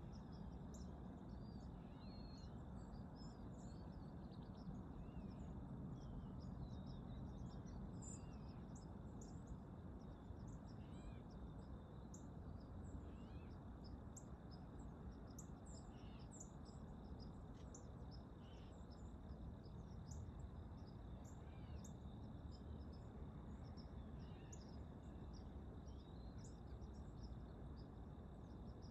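Faint dawn field ambience: a steady low rumble under many short, scattered songbird chirps, with a thin steady high tone running underneath.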